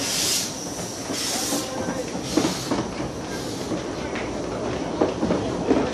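Narrow-gauge Kitson Meyer 0-4-0+0-4-0T steam locomotive pulling away with its carriages: hissing steam bursts in the first second or so, then the train rumbling past with its wheels clicking and knocking on the track a few times.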